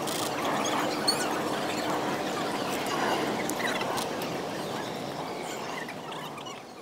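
Indistinct chatter of many people overlapping, with no single voice standing out, and a brief sharp sound about a second in. The sound fades out toward the end.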